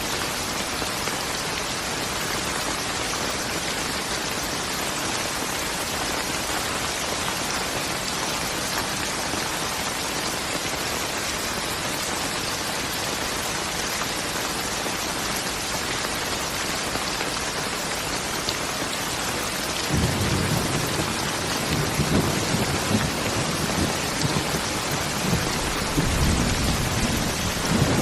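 Steady rain falling, an even hiss. About twenty seconds in, a low rolling rumble of thunder begins and swells again near the end.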